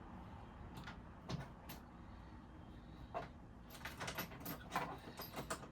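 Light clicks and knocks from handling sofa parts and hardware during assembly: a couple of single knocks in the first half, then a quick run of clicks about two-thirds of the way through.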